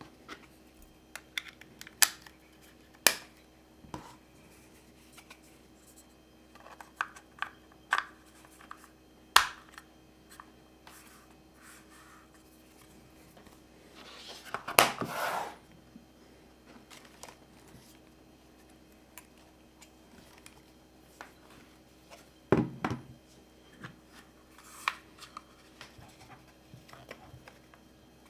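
Hands handling a camera lens and its plastic caps, a scattering of sharp clicks and taps. About halfway through comes a longer scraping rustle as a foam-lined filter case is opened, and later a dull knock.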